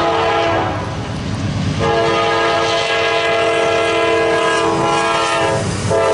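Freight locomotive's air horn sounding a multi-note chord as the train approaches: a blast that ends about half a second in, a long blast from about two seconds in until shortly before the end, and another starting near the end, over the low rumble of the locomotives.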